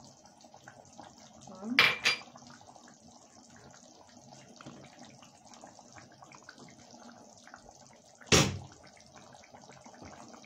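Kitchen clatter: two short, sharp clinks of kitchenware, about two seconds in and again about eight seconds in, over a low steady background noise.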